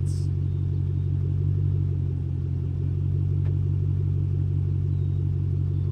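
2008 Ford Mustang Roush 427R's supercharged V8 idling steadily through its twin exhausts.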